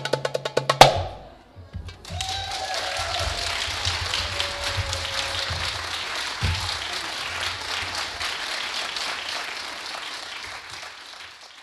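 Fast darbuka (goblet drum) strokes end the piece on one loud final hit about a second in. Then audience applause starts, steady for several seconds and fading toward the end.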